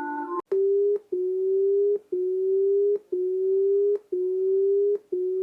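Synthesized emergency alert alarm tone: a low beep repeating about once a second. Each beep lasts most of a second, rises slightly in pitch and starts with a click. It comes in half a second after the end of a short chord of electronic tones.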